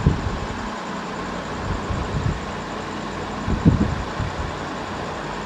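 Steady background hum with three dull low thumps: one at the start, one about two seconds in, and one a little past the middle.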